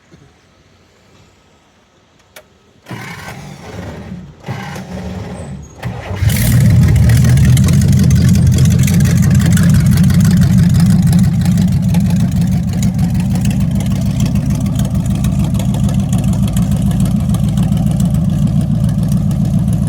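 392 Hemi V8 with dual four-barrel carburettors and open Zoomies headers, cranked by its starter for about three seconds, with short breaks. It catches about six seconds in and runs loud and steady.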